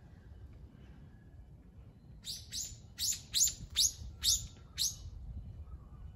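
A bird calling: a quick run of about eight sharp, high chirps, each falling in pitch, starting about two seconds in and lasting nearly three seconds.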